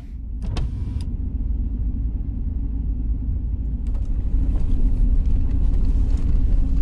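A vehicle's engine heard from inside the cabin as it pulls away, a low rumble growing louder as it gathers speed, with tyre noise building up about halfway through. Two sharp clicks come within the first second.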